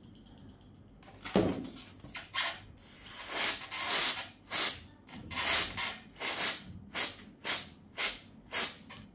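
Aerosol can of brake cleaner sprayed in about a dozen short hissing bursts, coming quicker toward the end at about two a second. A single thump comes about a second in, before the spraying.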